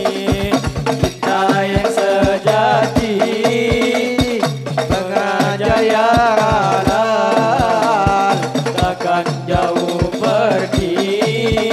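Hadrah music: frame drums beating a steady rhythm, about two to three strokes a second, under a winding sung melody.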